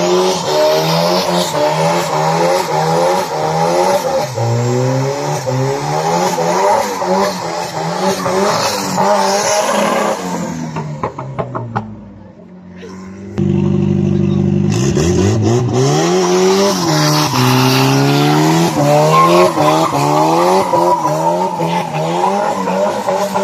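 A car engine revving hard through a burnout, the revs bouncing up and down, with tyre squeal over it. About halfway it drops away briefly, holds a lower steady note, then climbs and keeps revving.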